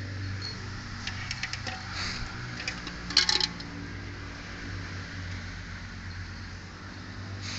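Metallic clinking and rattling from a chained water buffalo calf at its steel feed bowl: a few light clinks a little after a second in and a louder quick cluster about three seconds in, over a steady low hum.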